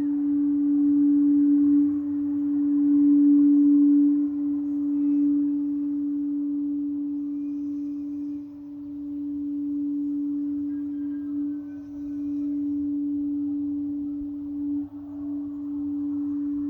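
Singing bowl sounding one sustained pure tone, a little below 300 Hz, with a fainter overtone an octave up, played for the sacral chakra. The tone rings on without break and swells and fades gently in loudness.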